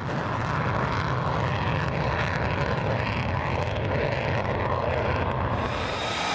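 Aircraft engine running steadily, a dense rumbling roar that starts abruptly.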